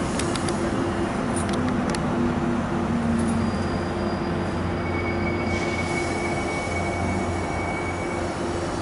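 Metro-North push-pull passenger train moving slowly past the station: a steady low drone from the diesel locomotive, a few sharp clicks in the first two seconds, and a thin, high wheel squeal from about five to eight seconds in.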